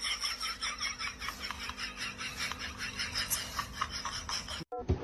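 A person laughing quietly in quick, rhythmic breathy bursts that slowly fade, cut off suddenly near the end.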